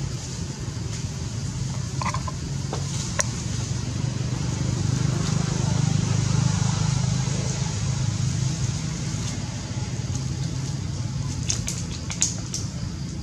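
Steady low rumble that swells about the middle, over a high steady hiss, with a few sharp crackles of dry leaves near the start and a cluster of them near the end.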